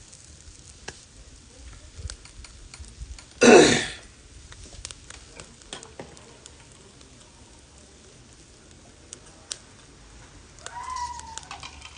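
Chicken wings sizzling faintly over charcoal in a shichirin grill, with scattered crackles and pops. A short loud burst of noise about three and a half seconds in, and a brief voice-like sound near the end.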